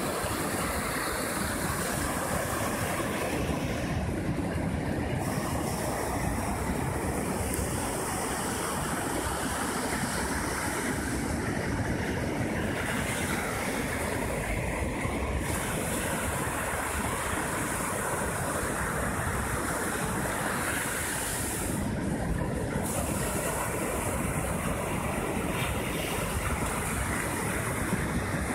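Heavy post-storm surf breaking and washing up a sandy beach: a steady, unbroken rush of water noise, with wind buffeting the microphone.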